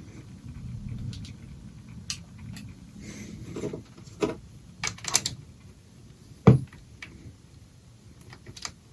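Scattered clicks and knocks of hands and tools working on an antique radio chassis, over a faint low hum at the start; the loudest is a dull knock about six and a half seconds in.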